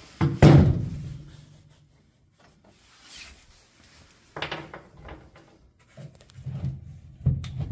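Handling knocks and rubbing against a wooden roof board and a metal headliner bow. There is one loud knock about half a second in, then scattered soft bumps and rubs, growing busier near the end.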